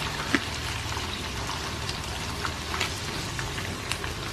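Peanuts deep-frying in a wok of hot oil: a steady sizzle of hard-bubbling oil with scattered crackles and pops, one sharper pop near the start. The batch has just gone in, so the oil is boiling up strongly around the nuts.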